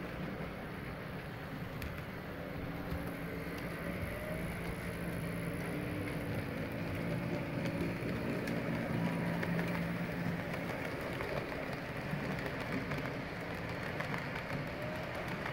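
HO-scale model train rolling along layout track: a steady hum and rumble of the locomotive and wheels over the rails, with faint background room noise.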